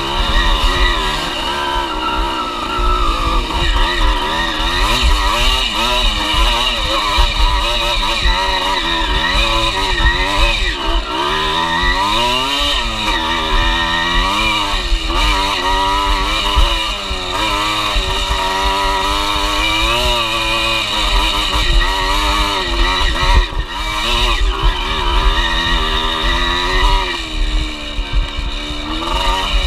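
Dirt bike engine revving up and down continually as the throttle is worked along a rough trail. A low, buffeting rumble of wind and bumps sits under it on the bike-mounted camera.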